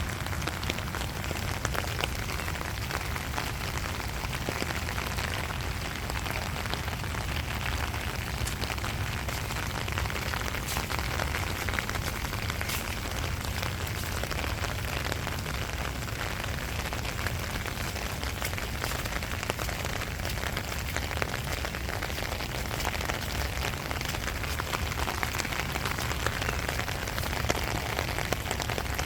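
Steady rain falling, a constant hiss with many small drop ticks throughout.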